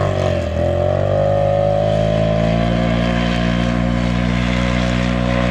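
Side-by-side UTV engine under hard throttle on a dirt flat track. It eases off briefly about half a second in, then revs climb and hold at a steady high pitch.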